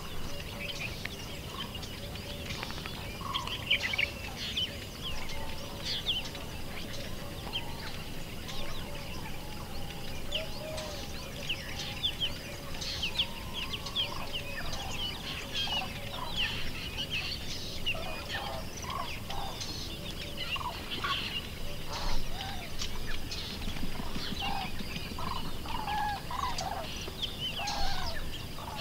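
Chickens clucking, with small birds chirping throughout.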